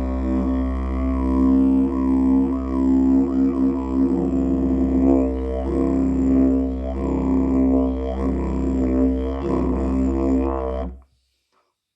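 White cherry didgeridoo played as a continuous low drone on one steady pitch, its overtones sweeping up and down as the mouth shapes the sound. The drone stops abruptly near the end.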